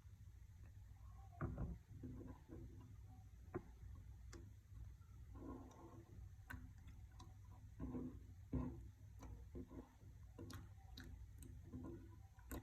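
Clear slime being pressed and folded by hand, giving irregular small clicks and pops with short soft crackles between them, a few of them louder, over a faint steady hum.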